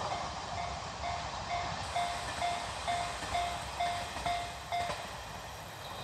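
Japanese level-crossing warning bell ringing about twice a second as the noise of the departed train dies away; the bell stops about five seconds in, the sign that the train has cleared the crossing.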